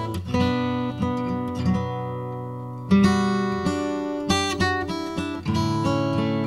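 Background music on acoustic guitar: plucked and strummed chords, each note struck and left to ring out.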